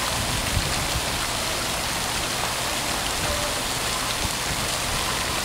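Steady splashing of water in a koi pond, a continuous rushing hiss.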